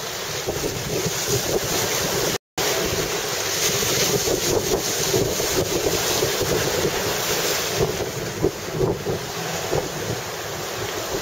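Wind noise on the microphone over the steady wash of surf breaking on the shore, rising and falling in gusts. The audio cuts out completely for a moment about two and a half seconds in.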